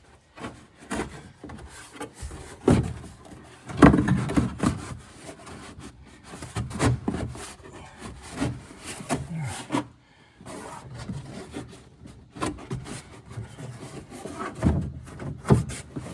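Stiff cardboard trunk filler panel scraping, rubbing and knocking as it is pushed and worked into place against a car trunk's wheel well, in irregular bursts. The loudest knock comes about four seconds in.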